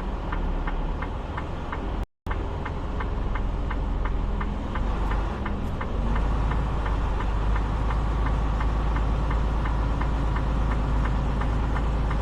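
Semi-truck diesel engine running with a heavy, steady low rumble. Through the first half there is a rapid, even ticking of about five a second, and a brief silent gap about two seconds in.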